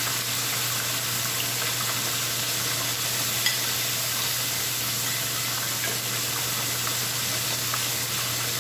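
Chicken breast frying in oil: a steady sizzle, with a low hum underneath. Scattered light clicks of a serving utensil against a bowl and pan, with one sharper tap about three and a half seconds in.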